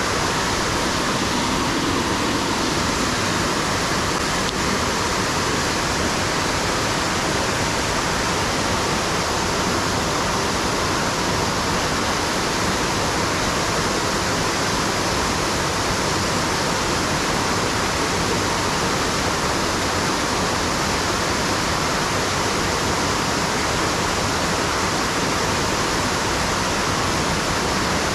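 Waterfall rushing: a loud, steady, unchanging wash of falling water.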